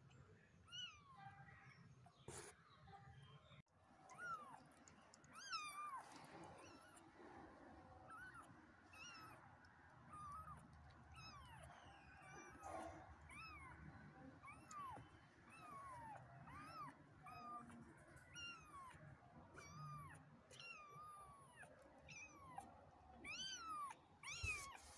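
Tiny 16-day-old kittens mewing over and over: thin, high calls that rise and fall, about one or two a second.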